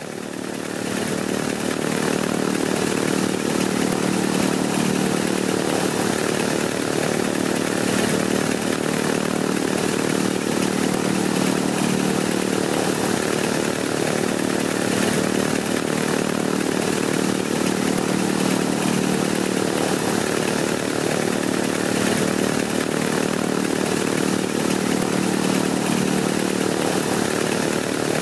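Wright Cyclone R-1820 nine-cylinder air-cooled radial aircraft engine running steadily at a constant speed, fading in over the first two seconds.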